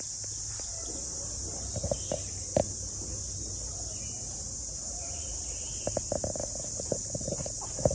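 Steady high-pitched drone of insects, with scattered short clucks of chickens, bunched about two seconds in and again from about six seconds in.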